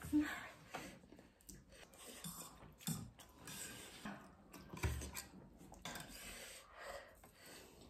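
Faint eating sounds at a table: forks scraping and tapping on ceramic plates as noodles are twirled and eaten, with a few soft knocks.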